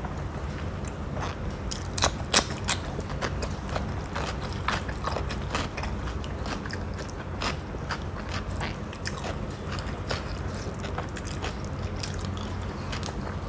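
A person chewing and eating close to the microphone: many wet mouth clicks and smacks, with two sharper clicks about two seconds in, over a steady low hum.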